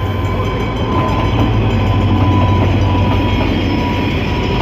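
Pakistan Railways HGMU-30 diesel-electric locomotive and its passenger coaches passing alongside the platform as the train departs. The engine hums deep and steady under a loud rolling rumble of wheels on rail, with a thin high whine coming in about a second in and fading out near the end.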